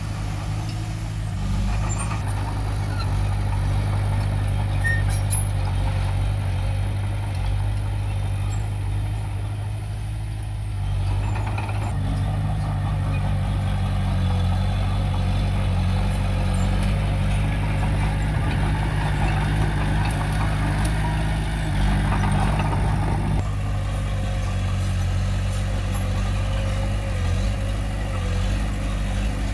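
Diesel engine of a heavy earthmoving machine running steadily under work, its note and load shifting a few times.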